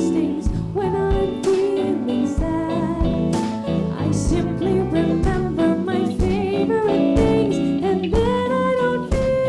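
A small jazz combo playing a Christmas tune: a guitar carries the melody over bass and a steady drum beat.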